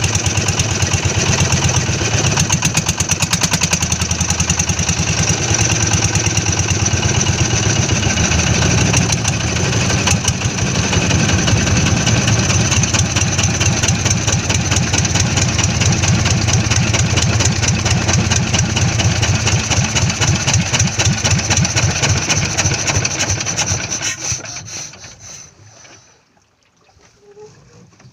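Small engine running at a steady speed with a fast, even firing beat, then shut off about 24 seconds in and dying away over a couple of seconds.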